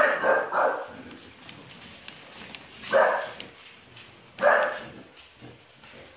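English bulldog barking at a small remote-controlled toy robot: two barks close together at the start, then single barks about three and four and a half seconds in.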